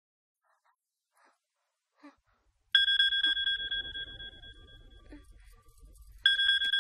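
Mobile phone ringing twice: each ring is a sudden, steady two-tone ring that fades over about two seconds. The first comes about two and a half seconds in, after near silence, and the second near the end.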